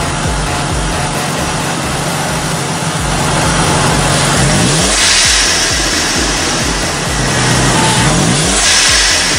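Twin-turbocharged 2005–2009 Ford Mustang 4.0-litre V6 idling, then revved twice, about halfway through and near the end. Each time the revs rise, a sharp hiss follows as the blow-off valve vents boost.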